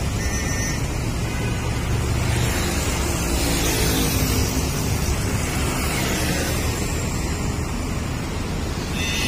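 Steady traffic noise on an elevated highway, vehicles and motorbikes passing, mixed with wind on the microphone.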